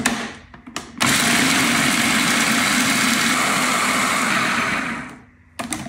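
Food processor with an S-shaped blade grinding walnuts, pumpkin seeds and cocoa: a few plastic clicks as the lid is locked, then the motor starts about a second in and runs steadily for about four seconds before winding down. More clicks follow near the end.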